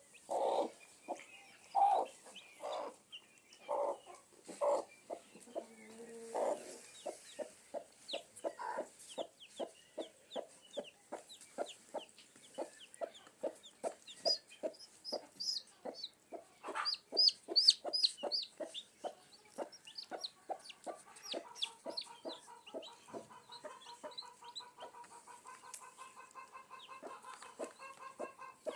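Chickens clucking in a rapid run of short clucks, about three to four a second, with higher, sharper calls bunched in the middle and a long drawn-out call held through the last third.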